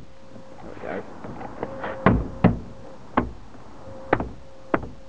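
Hand thumping a VW Fox's plastic interior door trim panel, five separate blows at an uneven pace from about two seconds in, to knock its clips back into place in the door.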